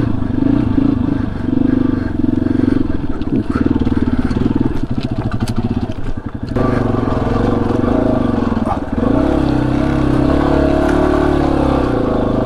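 Yamaha XT250's single-cylinder four-stroke engine pulling the bike slowly over rocky trail, its note changing with the throttle. It goes ragged and low about halfway through, picks up sharply just after, then rises and falls again toward the end, with scattered knocks from rocks under the tyres.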